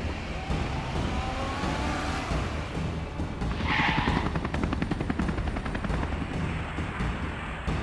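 Cartoon action sound effects: a steady low rumble of vehicles running, with a short burst of noise about four seconds in followed by a fast rattle.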